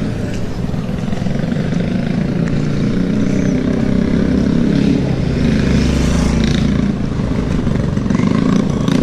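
Small motorcycles running along a dirt road, one approaching, over a steady low rumble.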